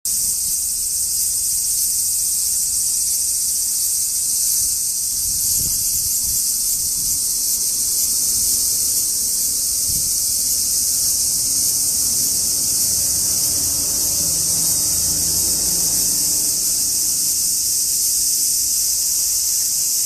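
Cicada singing at close range: one continuous, steady, high-pitched buzz with no pauses.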